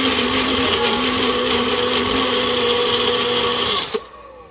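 Magic Bullet personal blender running steadily, whipping raw eggs to a froth; the motor cuts off about four seconds in.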